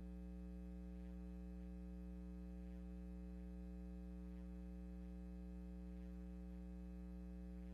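Steady electrical mains hum with a buzzy stack of overtones, unchanging and with no other sound over it.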